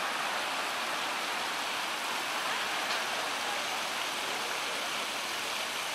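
A plaza fountain's water jets splashing steadily into their pool, an even hiss of falling water.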